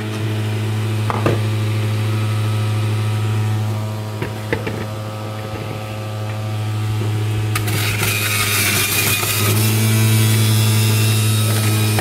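Breville centrifugal juicer motor running with a steady hum, with a few knocks in the first half. From about eight seconds in, a loud shredding hiss joins it as produce is pushed down the feed tube into the spinning cutting disc.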